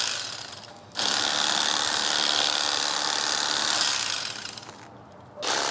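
Electric fillet knife running in bursts: it dies away over about a second, restarts abruptly, runs steadily for about three seconds, dies away again and starts up once more near the end.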